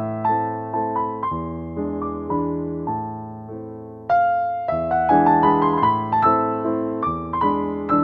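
Background piano music playing a gentle melody of struck, decaying notes. A phrase fades out and a new one starts about four seconds in.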